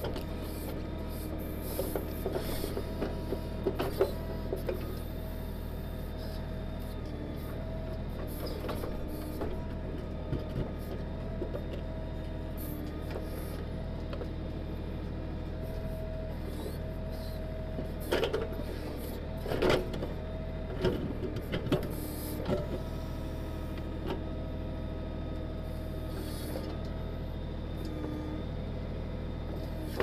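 Kioti DK6010 tractor's diesel engine running steadily to drive the KB2485 backhoe's hydraulics, with a hydraulic whine that comes and goes as the arm moves. The bucket knocks and scrapes in rocky, rooty soil and dumps dirt, in a cluster of sharp knocks a few seconds in and a louder one past the middle.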